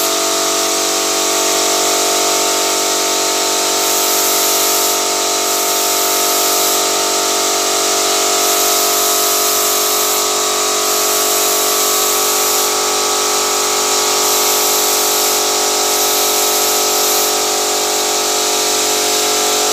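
Paint spray gun running steadily while spraying paint onto a wall: a constant machine hum under a hiss of spraying air and paint.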